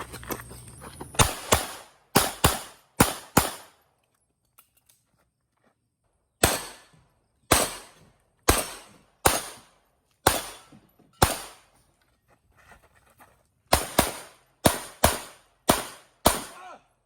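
HS2000 pistol fired in three strings of sharp shots, about sixteen in all, with a few seconds' pause between strings. The middle string is slower, roughly one shot a second, and the last string is the quickest.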